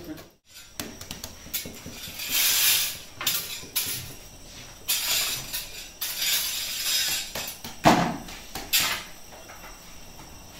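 Long iron oven tools scraping and clattering against the hot pebble bed and stone mouth of a Sangak bread oven, in irregular bursts with sharp metallic knocks, the loudest about eight seconds in.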